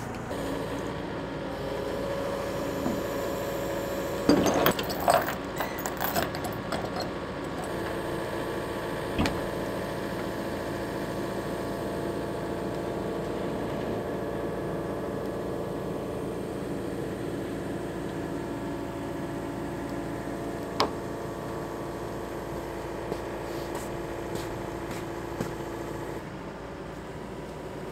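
Excavator's diesel engine running steadily as it lifts a framed wall upright. A cluster of knocks and clatter comes about four to seven seconds in.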